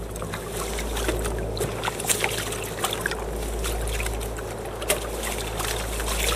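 Hobie Adventure Island sailing kayak under way through chop: water rushing and slapping along the hull with spattering spray, over a steady low wind rumble on the microphone.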